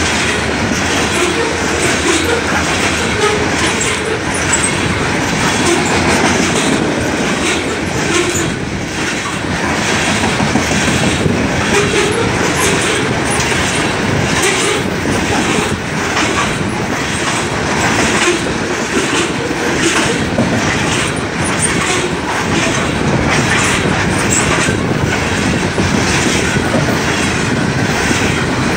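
BNSF coal train's cars rolling past: a steady rumble of steel wheels on rail, with a regular clickety-clack as the wheels cross the rail joints.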